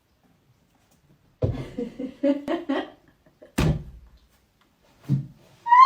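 A series of knocks and thumps: a quick cluster of knocks, then a single sharp bang about halfway through, and a softer thud near the end.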